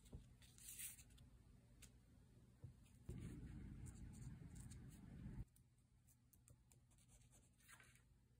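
Faint crinkle of a clear plastic stamp being handled on a paper card, then light scratching of a fine-tip pen drawn along the card's edge. A dull low rumble starts and stops abruptly for about two seconds in the middle.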